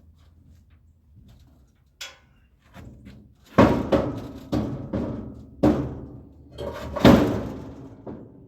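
A series of heavy bangs: a light knock, then about six loud bangs over four seconds, each with a brief ringing tail. The loudest come near the middle and near the end.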